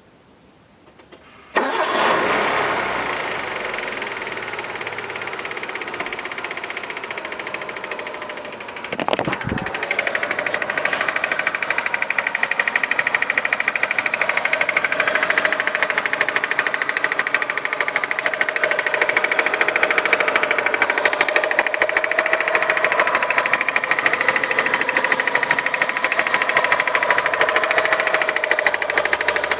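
Mitsubishi 4G93 four-cylinder engine cranking and starting about a second and a half in, then idling steadily, with a thump near the ninth second. Through the idle runs a rhythmic, sharp metallic click from the timing-belt and crankshaft-pulley area, roughly in time with crankshaft rotation. The owner has ruled out valve clearance, the timing belt and the accessories as its cause.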